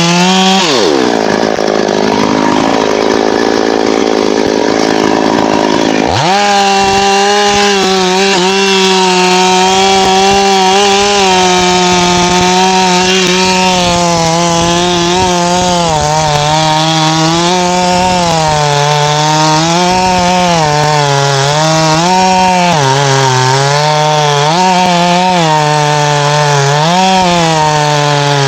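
Two-stroke chainsaw running hard and cutting into wood. Its revs drop sharply about a second in and climb back near six seconds, then rise and fall again and again as the chain bites into the cut.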